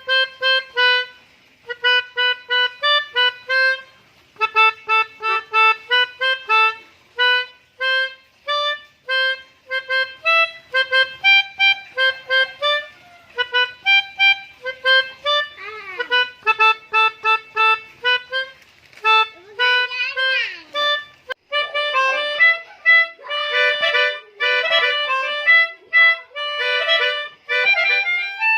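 Pianika (melodica) playing the Basuri 'telolet' bus-horn melody in quick, short, separated notes, with a couple of sliding swoops in pitch about halfway through.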